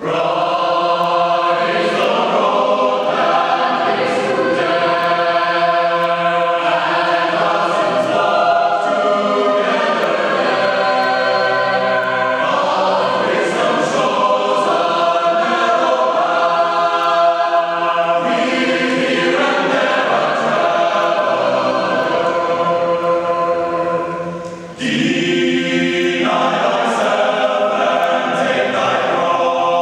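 Mixed high school choir, sopranos, altos, tenors and basses, singing sustained chords in parts. About 24 seconds in the sound briefly fades, then the full choir comes back in loudly.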